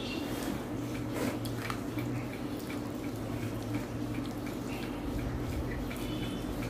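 Eating sounds: scattered soft, wet clicks and smacks of food being mixed and chewed, over a steady low hum.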